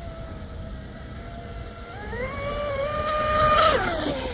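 Electric RC speedboat (carbon-fibre Dominator mono hull, 4060 brushless motor) running at speed, its motor whine steady at first and rising in pitch about two seconds in. It is loudest as the boat passes close with a hiss of spray, then the pitch drops as it goes by.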